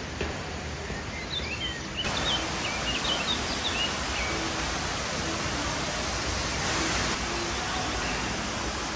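Steady rushing of an indoor exhibit waterfall, louder after about two seconds, with small birds chirping in short high calls during the first few seconds.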